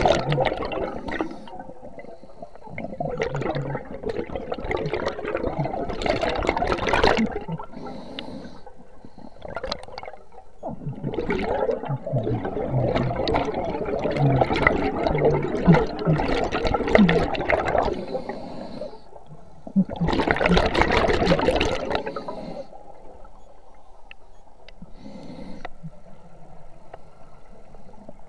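Scuba diver's breathing underwater: exhaled air bubbling out of the regulator in long gurgling bursts of several seconds, with quieter gaps between breaths.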